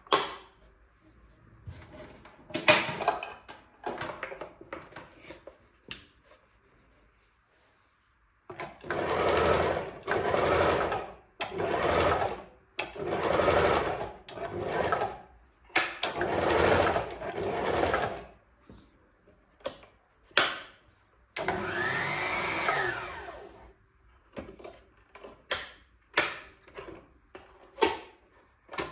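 Pfaff hobby 4260 sewing machine running in about six short bursts of a second or so each, then one longer run of about two seconds with the motor pitch rising and falling. Sharp clicks and knocks of the machine being handled come before and after the runs.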